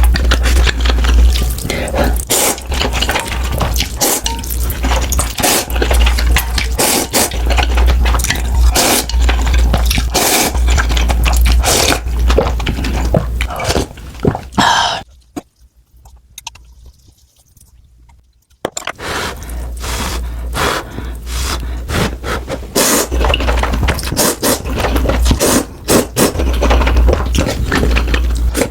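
Close-miked mukbang eating sounds: spicy noodles being slurped and chewed, with wet smacking clicks and low thumps. A quiet break of about three seconds falls midway.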